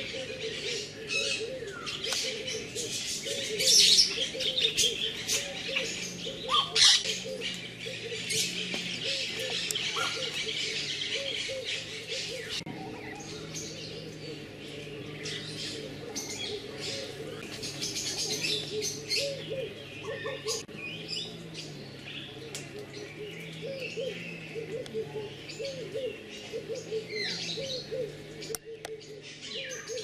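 Many birds chirping and calling at once, a dense mix of high chirps over lower repeated calls.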